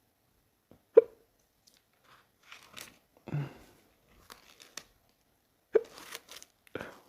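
Two loud, sharp hiccups, about a second in and again near the end, with softer short sounds between.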